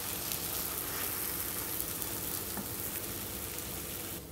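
Grated-mango pachadi in its sugar and oil sizzling steadily in the pan on residual heat just after the gas is switched off, with a few faint clicks. The sizzle cuts off just before the end.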